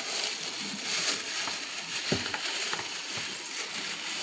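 Handling noise: a steady rustle with scattered light clicks and one sharper knock about two seconds in.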